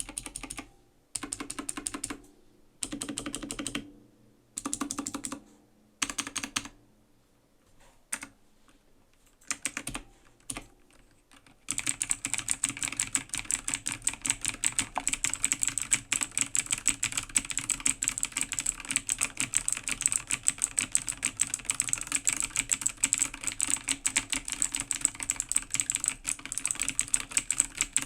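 A2 AG0302 mechanical gaming keyboard with clicky blue switches being typed on: about six short bursts of keystrokes over the first dozen seconds, then continuous fast typing.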